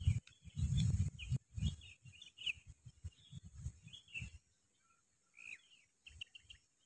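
Small birds chirping in quick repeated short notes, with an irregular low rumble under them for the first four seconds or so and a steady high hiss.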